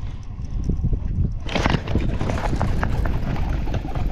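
Wind buffeting the microphone on a kayak, with a scattering of light clicks and knocks that start about a second and a half in.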